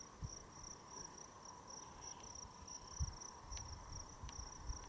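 Faint, steady high-pitched insect trill, pulsing rapidly and evenly, with a few soft low bumps underneath.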